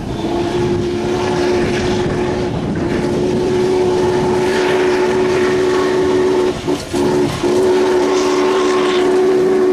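Norfolk & Western J Class 611 steam locomotive blowing its chime whistle, several notes sounding together as a chord in long blasts, with two short breaks a little after six seconds in, over the running noise of the passing train.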